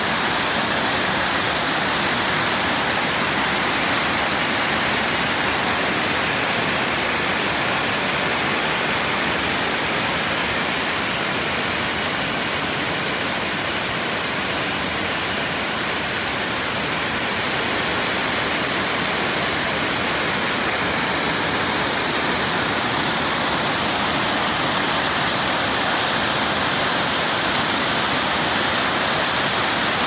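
Water pouring over a small concrete dam's spillway and churning into white water below: a steady, loud rush that eases off a little for a few seconds midway.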